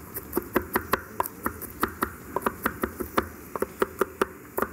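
Chef's knife chopping garlic cloves on a wooden cutting board: a steady run of quick knocks, about five a second.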